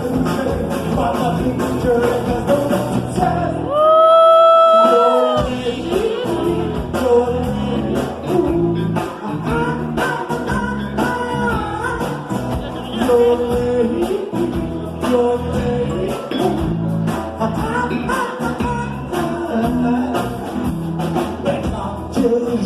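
A song with wordless yodeled singing over band accompaniment. About four seconds in, the accompaniment drops out under one long, high held note for a little over a second, and then the band comes back in.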